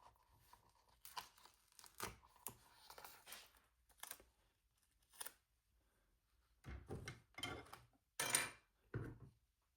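Scissors cutting a paper sticker in half, with light paper handling. A few short, louder cuts come in the last three seconds.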